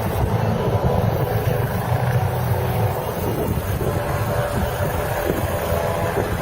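Helicopter in flight: a steady low rotor and engine drone, with wind on the microphone.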